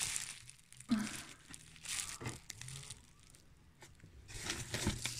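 Paper packing rustling and crinkling in a cardboard box as hands rummage through it, in several irregular bursts, with a short thump about a second in.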